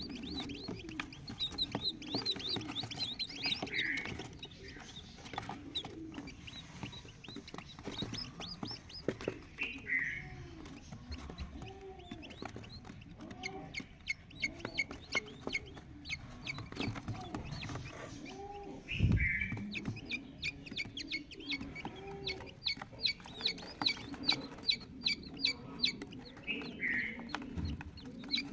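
Partridge chicks peeping in rapid, high chirps, mixed with lower clucking calls and an occasional louder call. A single thump about two-thirds of the way through.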